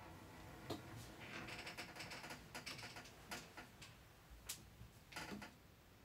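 Faint, irregularly spaced clicks and short, soft hissing noises over a quiet background.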